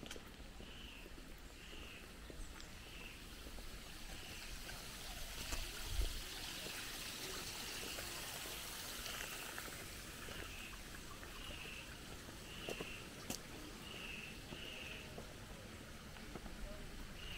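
Water running steadily in a stream. A short high call repeats about once a second over it, and there is a single soft thump about six seconds in.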